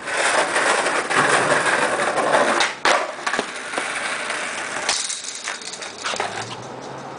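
Skateboard wheels rolling on concrete, stopping abruptly with a sharp clack about three seconds in, followed by a few more sharp clacks of the board.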